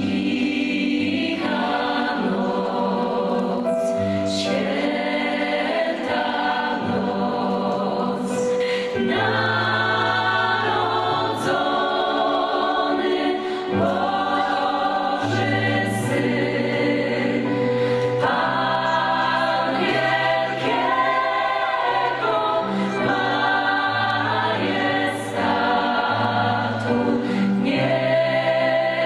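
Gospel choir singing with keyboard accompaniment over a steady bass line, with occasional sharp strokes on top.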